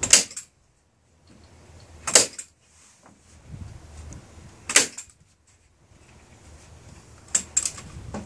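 Nail gun firing single shots every two to three seconds, each a sharp crack, with two in quick succession near the end.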